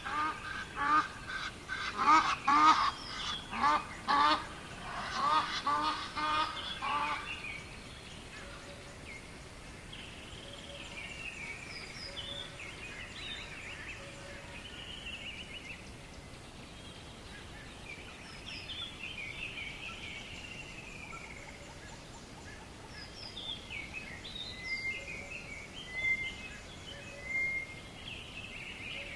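Riverside dawn chorus: a group of waterbirds giving loud, rapidly repeated calls for about the first seven seconds, then quieter songbirds singing scattered phrases over a faint steady background hiss.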